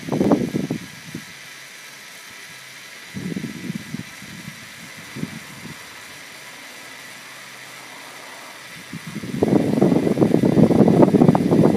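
Small motorised LEGO Technic car running slowly over gritty concrete, its wheels and geartrain giving a rough, crackling rumble that comes and goes, then gets loud in the last couple of seconds.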